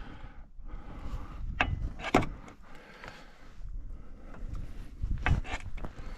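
A jack being worked by hand, with scattered metal knocks and scraping; the sharpest knocks come about two seconds in and again near five seconds.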